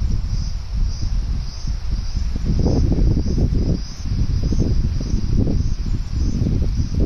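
Insects chirping in a high, steady trill that pulses about twice a second, over a louder, uneven low rumbling noise.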